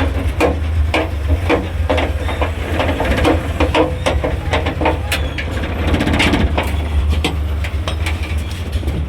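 A Multicab's 12-valve engine running at idle with a steady low hum, while irregular knocks and clicks sound over it throughout.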